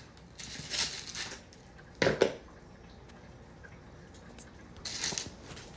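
Hard lumps of sugar loaf being handled on their paper wrapper on a countertop: a few brief rustles and clicks, the loudest a knock about two seconds in.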